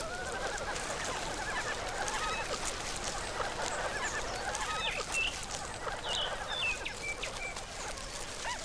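Forest birds calling: a raucous chorus of repeated fowl-like calls, with a few short, higher whistled notes about five to seven seconds in.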